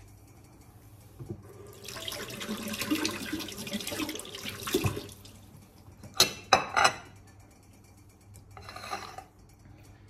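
Tap water running for a few seconds while a hard-boiled egg is rinsed, then three sharp knocks as an egg is cracked against a hard surface, and a short crackle of shell near the end.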